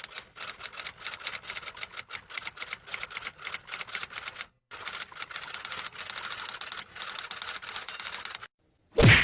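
Rapid typing clatter of keys, many strokes a second, with a brief pause about halfway. Just before the end comes a short, loud burst.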